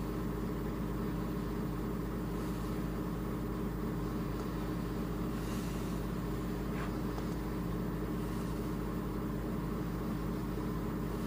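Steady low electrical hum and buzz, unchanging in level and pitch.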